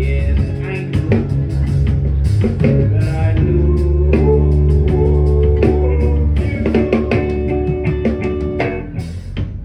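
Live rock band playing loudly: electric guitar chords over bass and drums, with some singing.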